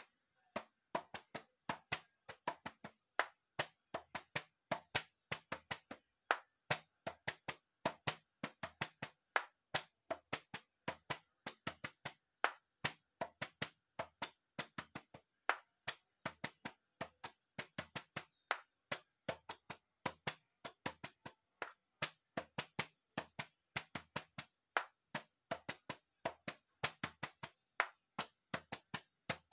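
Homemade pink ball-shaped hand drum struck with the hands in a steady rhythm: sharp knocking taps at about three a second, some with a deeper thump.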